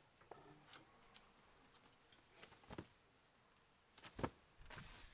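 Near silence with a few faint knocks and taps as a man steps on the camper's fold-down entry steps and handles a woven rug, the sharpest knock about four seconds in, followed by a soft rustle near the end.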